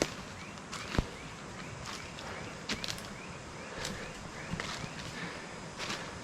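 Footsteps crunching and crackling through undergrowth on a rainforest trail, with one sharper knock about a second in. Rainforest ambience behind, with a small animal chirping over and over.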